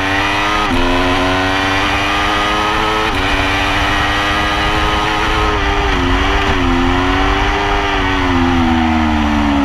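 Aprilia RSV4 RF's V4 engine under hard acceleration on track, the pitch climbing and dropping sharply with an upshift about a second in and again about three seconds in. The pitch dips and wavers about six seconds in, then falls slowly near the end.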